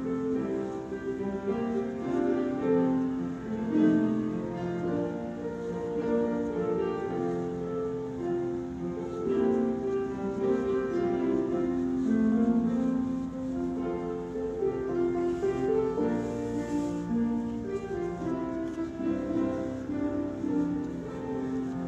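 Slow instrumental music of sustained, held notes that change every second or so, with no singing.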